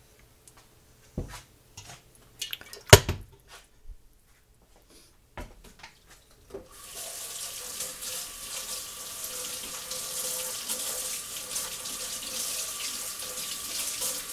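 A few knocks and clinks, the sharpest about three seconds in, then a tap is turned on and water runs steadily into the sink from about halfway through.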